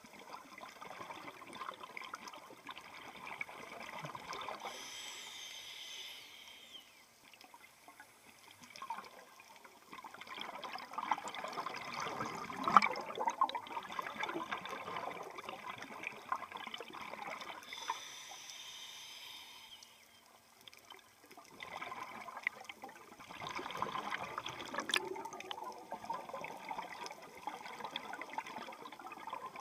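Scuba breathing picked up through an underwater camera housing: long stretches of exhaled bubbles gurgling and crackling, twice broken by a shorter, steady hiss of inhalation through the regulator.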